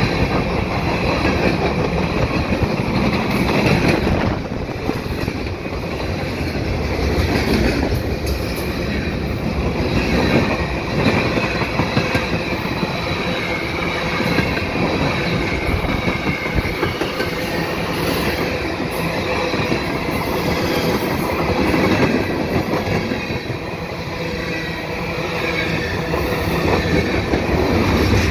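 Freight cars of a passing freight train rolling by close: a steady rumble of steel wheels on rail with clickety-clack over the rail joints, rising and falling slightly, and a thin high wheel squeal running underneath.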